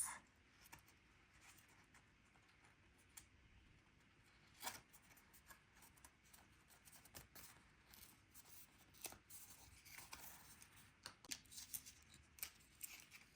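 Near silence with faint paper handling: scattered small taps and rustles of cardstock pieces being handled and pressed on with adhesive foam squares. There is a slightly louder tap about four and a half seconds in and another about nine seconds in.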